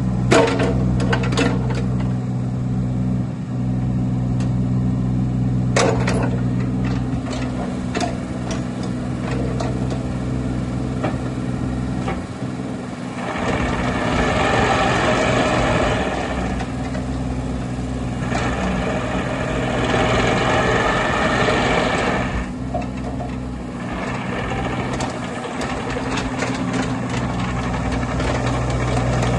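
Bobcat E26 mini excavator's diesel engine running steadily, with a few sharp clicks and knocks near the start and about six seconds in. Two louder spells of rushing noise, each about three seconds long, come about halfway through as the machine is worked.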